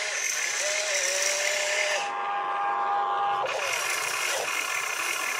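Small electric motors of a toy RC excavator whining as it lifts its loaded bucket and swings its boom round. The whine changes pitch about two seconds in and changes back about a second and a half later, as different motors take over.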